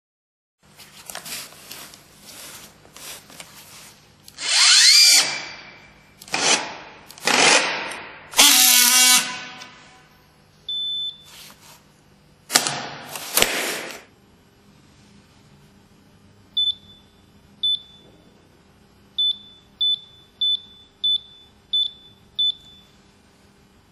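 Orgapack OR-T 250 battery strapping tool running its motor in several loud bursts, one of them rising in pitch, as it tensions and welds plastic strap. In the last third come eight short high beeps, one per press of the welding-time button on its control panel.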